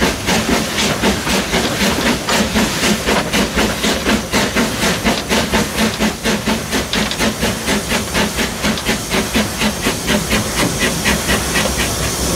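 Krauss steam tram locomotive working under way, heard from the footplate: a fast, regular beat of hissing exhaust chuffs, about four a second.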